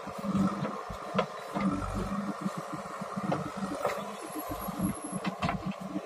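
Diesel engine of a JCB 3DX backhoe loader running with a pulsing low rumble while the machine works a soil pile. A few short, sharp knocks and clicks come over the engine sound.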